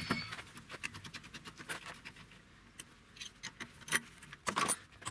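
Light clicks and metallic clinks from hands working at a car's rear disc-brake caliper, with a louder clatter about four seconds in and again just before the end.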